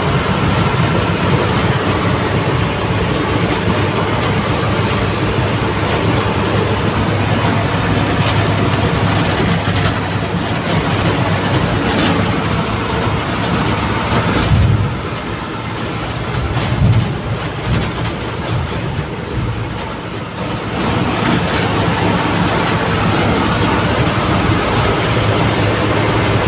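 Steady engine and road noise inside a moving vehicle's cabin, with body rattles and a few sharp knocks around the middle.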